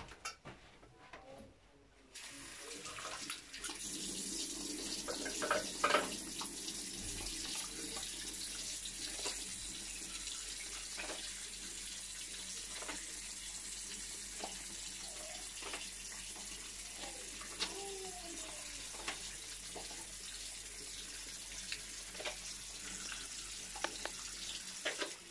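Bathroom sink tap turned on about two seconds in and left running in a steady stream into a ceramic basin while soapy hands are rubbed together beside it, with small splashes and knocks. It gets quieter just before the end.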